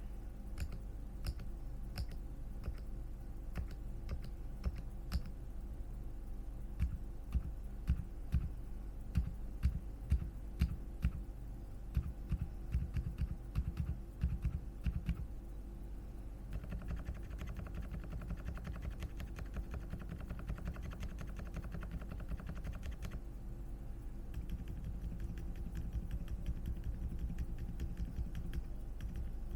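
Typing on a ZOUYA GMK67 mechanical keyboard fitted with silent switches: muted, separate key presses, then a spell of fast, continuous typing a little past halfway, easing into lighter steady typing.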